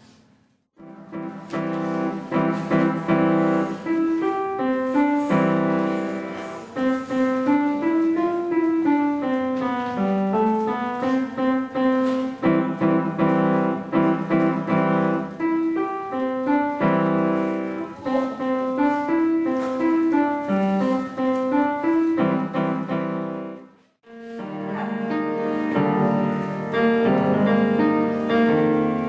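Upright piano played solo, a melody of sustained notes over chords. About 24 seconds in, the playing cuts off abruptly and a different piano passage begins.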